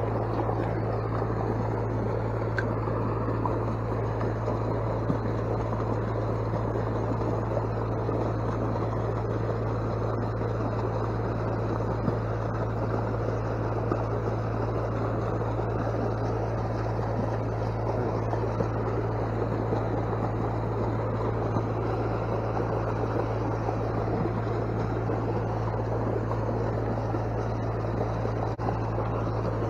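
Water pouring steadily from a pipe outlet into a reservoir, an even rushing, over a constant low hum.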